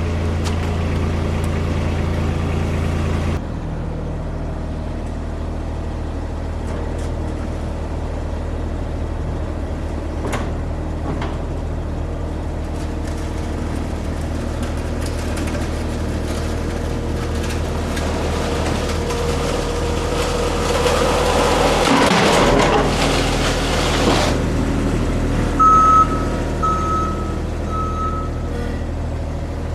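Avant compact loader's engine running steadily as it drives past a ground-level camera pushing a snowplow with a UHMW plastic cutting edge. It grows louder and rougher as the machine passes close, about two thirds of the way in, then three short electronic beeps follow near the end.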